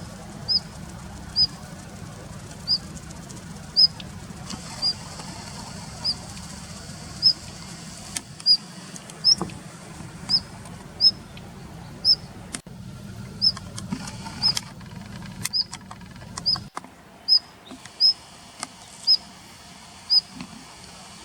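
Daurian redstart giving short, high, sharp calls over and over, about one a second. A low steady rumble underneath stops about three-quarters of the way through.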